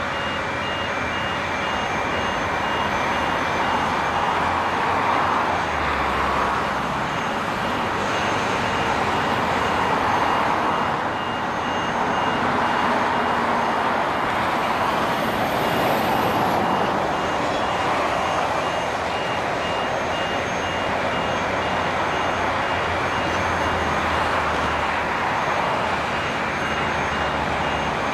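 Steady noise of heavy construction machinery running, with a backup alarm giving repeated high beeps at an even rate.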